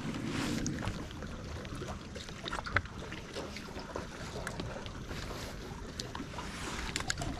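Wind rumble on the microphone with scattered small clicks and knocks, the sharpest a little under three seconds in.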